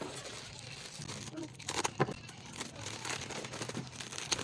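Shop packaging being handled and crinkled, with a couple of sharp crackles about two seconds in and another near the end.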